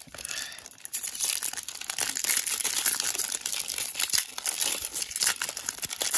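Foil Magic: The Gathering booster pack wrapper crinkling and crackling as hands handle and tear it open, starting about a second in.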